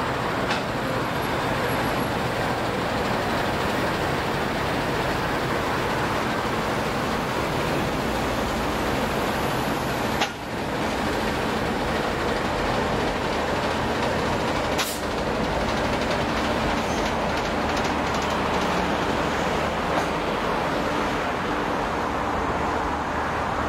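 Long stainless-steel passenger train rolling past at speed, a steady rushing rumble of wheels on rail, with a single sharp click about ten seconds in and another about five seconds later.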